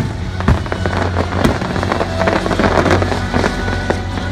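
Aerial fireworks exploding: sharp bangs about half a second and a second and a half in, then a dense crackling of sparkling shells, over loud symphonic music.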